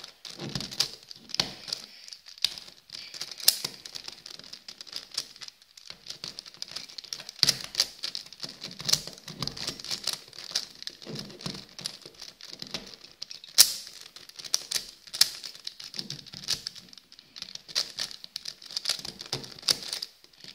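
A Megaminx puzzle being turned rapidly by hand to scramble it: a continuous irregular clicking and clacking of its plastic faces, with one sharper snap about two-thirds of the way through.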